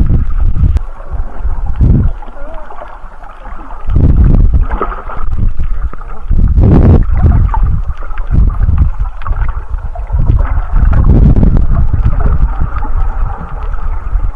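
Muffled underwater rumble of water rushing past a camera held below the surface while snorkelling, swelling and fading in surges every one to three seconds.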